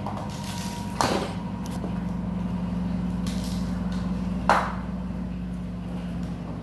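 Ice cubes knocked out of a plastic ice cube tray into a glass bowl: two sharp clatters, about a second in and about four and a half seconds in. A steady low hum runs underneath.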